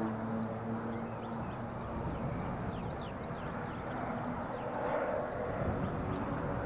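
Air Tractor AT-500 series crop duster's engine and propeller, a steady drone that grows louder about five seconds in as the plane comes in low toward the listener. Small birds chirp over it.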